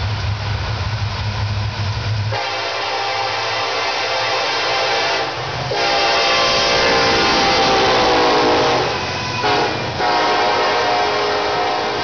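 Nathan K5LLA five-chime air horn on a Norfolk Southern SD70ACe locomotive blowing two long blasts, a short one and a long one, the grade-crossing signal, over the low rumble of the locomotive's diesel engine. The horn's pitch drops as the locomotive passes, and the coal hoppers rattle by underneath the last blast.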